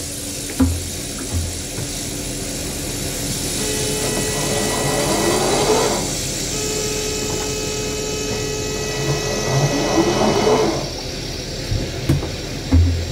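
Electric linear actuator of a yacht's fold-down transom platform running. Its motor gives a steady whine for about two seconds as the rod extends, stops briefly, then runs again for about four seconds as the rod retracts. Running freely like this points to the skewed rod seal as what had been jamming it. Two dull knocks come about a second in.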